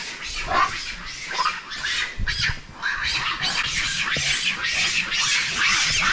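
Long-tailed macaques screaming and shrieking in rapid, overlapping calls during a fight among the troop.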